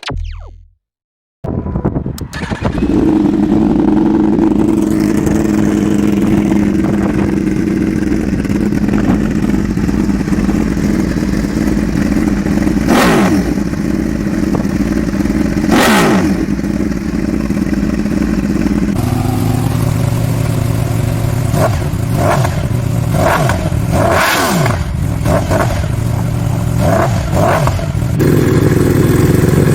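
Yamaha R1 inline-four with an aftermarket GSPR exhaust idling loudly. The throttle is blipped twice, about 13 and 16 seconds in, then several quick blips come in a row later on.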